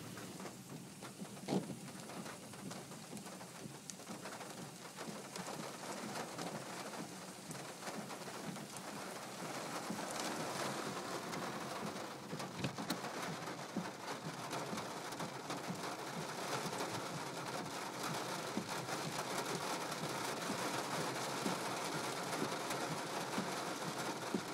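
Rain falling on a car's roof and windshield, heard from inside the car, with occasional sharper drop hits. The rain grows heavier about ten seconds in.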